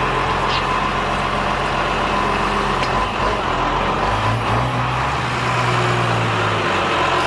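Blue New Holland tractor's diesel engine running steadily under load as its boom lifts a sack of olives. The engine note rises a little about four seconds in and holds.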